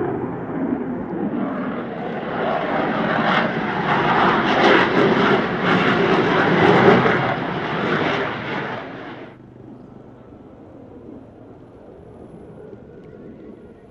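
Jet noise of a HAL Tejas fighter flying past, swelling to its loudest a few seconds in. It cuts off abruptly about nine seconds in, leaving faint steady background noise.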